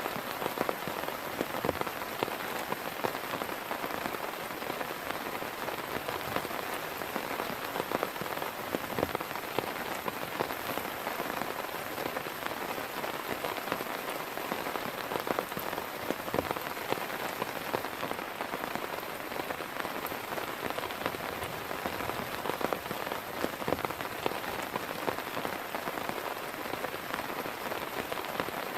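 Steady rain falling, with many individual drops striking a nearby surface throughout.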